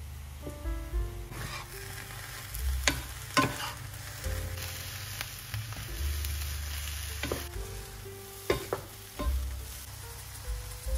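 Diced eggplant frying in a nonstick pan, stirred with a wooden spatula. There is a sizzle and scrape in the middle, and a few sharp knocks of the spatula against the pan near 3 seconds in and again near 9 seconds.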